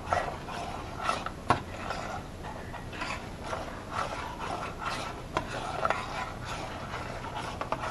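Spoon stirring pasta in a stainless steel saucepan: irregular scraping strokes around the pan, with a few sharp clinks against the side, the clearest about a second and a half in.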